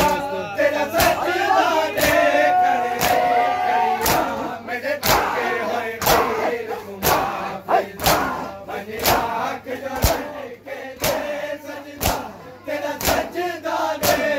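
Group of men performing matam, beating their chests with open hands in unison: sharp slaps about once a second, with a crowd of male voices shouting and chanting over them.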